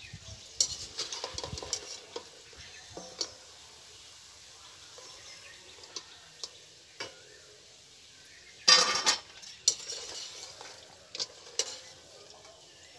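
A metal slotted skimmer clinking and scraping against a metal kadai and a steel bowl as fried dough sticks are lifted out of oil and tipped into the bowl, with the loudest clatter about nine seconds in. A faint sizzle of oil frying on low heat runs underneath.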